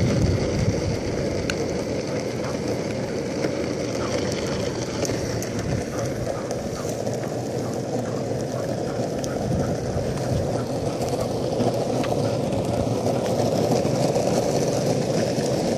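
Skateboard wheels rolling steadily over asphalt, a continuous rolling rumble.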